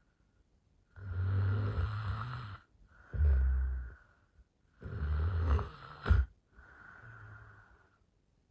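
A woman snoring in her sleep: four snores in two pairs, each a long rasping low rumble followed by a shorter one, with the last snore quieter than the others and a brief sharp catch just before it.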